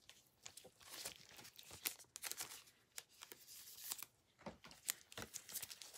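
Faint rustling, scraping and scattered light clicks of trading cards and plastic card holders being handled.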